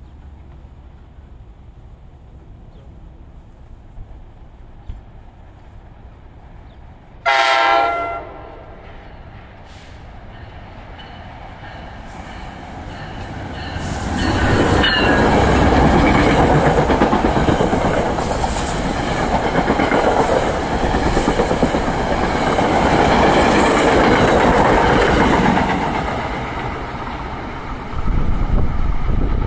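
An NJ Transit commuter train gives one short horn blast about seven seconds in, then approaches and passes loudly, its wheels clattering over the rail joints. The noise builds for a couple of seconds, holds for about ten seconds and then eases off, with another loud surge near the end.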